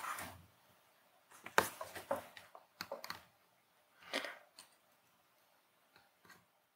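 Faint handling noises of soldering work: a small circuit board set down on a work mat and the soldering iron and solder wire taken up, a scatter of light clicks and rustles with one brief scrape about four seconds in.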